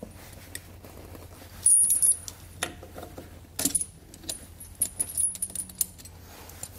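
Steel square-link tire chain clinking and jangling in several short bursts as it is handled and a cam tensioner on it is twisted tight. The loudest jangle comes about two seconds in.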